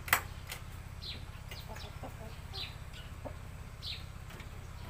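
A sharp wooden knock at the start as the coop is opened, then chickens calling with several short, high calls that fall in pitch while a shamo rooster is taken out of the coop.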